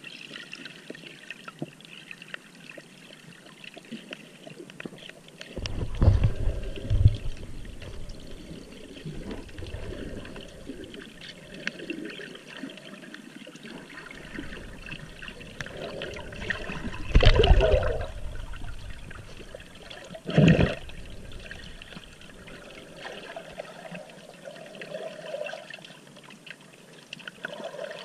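Tide-pool water heard underwater: a steady muffled wash and gurgle, with three louder sloshing surges at about six, seventeen and twenty seconds in.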